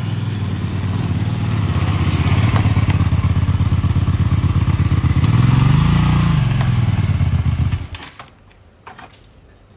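A motor vehicle engine running close by with a fast, even pulse. It revs up and back down about six seconds in, and the sound cuts off suddenly near the end.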